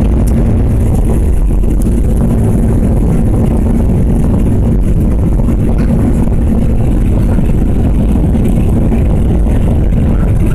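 Airliner's engines at takeoff power with the rumble of the takeoff roll, heard from inside the cabin: a loud, steady roar with a constant hum running through it.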